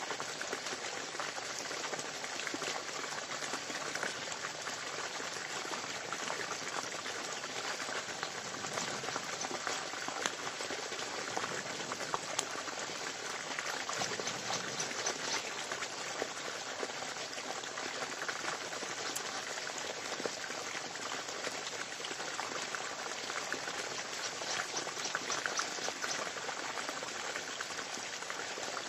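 Wood campfire crackling and hissing, a dense steady run of small pops.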